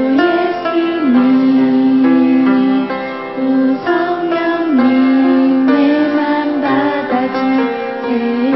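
Music: a song, its melody held in long notes that slide between pitches over instrumental backing.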